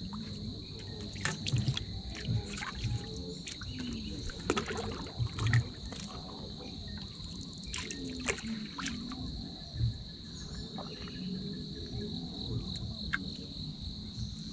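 A steady, high-pitched insect chorus drones without a break. Scattered knocks and clicks of close-by handling are heard over it, the loudest a few seconds in and again near the middle.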